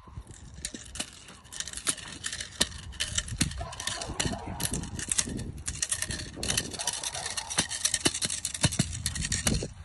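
Rapid rattling and scuffling from a decoy's bite suit and gear as a dog grips and tugs at it during a bite exercise, growing busier and louder from about three seconds in.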